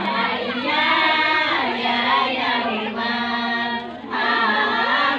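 A group of women singing a marhaban, the Malay devotional chant of praise, several voices together, with a brief break about four seconds in.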